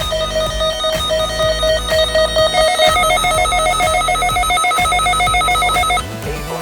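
Electronic emergency alert tone beeping rapidly and continuously, sounding for a tornado warning; it steps up slightly in pitch about three seconds in and cuts off about six seconds in.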